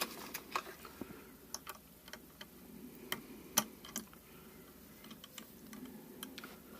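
Scattered light metallic clicks and taps, irregular and loudest about three to four seconds in, as the chain and hook of a portable electronic hanging scale are handled and hooked onto the spindle's collet holder.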